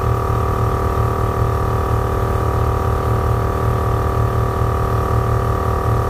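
450C air-ride compressor running steadily under load, a high whine over a fast pulsing hum, as it pumps an air tank up to high pressure near its rated limit.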